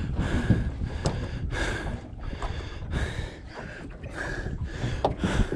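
A person panting hard, about two quick breaths a second, from the effort of fighting a big fish on the rod. A steady rumble of wind and water runs underneath, with one sharp click about a second in.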